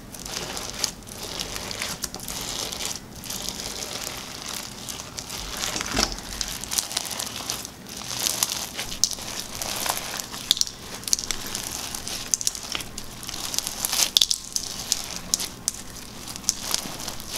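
Crunchy fishbowl slime full of small beads being squeezed and kneaded by hand: a dense crackling crunch that swells with each squeeze.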